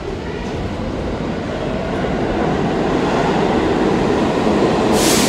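R46 subway train running on the rails, its rumble growing steadily louder, with a brief burst of noise near the end.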